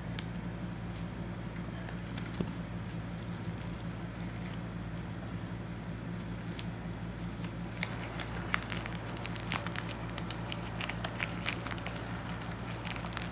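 Plastic bubble mailer crinkling and crackling as it is handled and cut open with scissors, with scattered clicks and snips that grow more frequent about two-thirds of the way through. A steady low hum runs underneath.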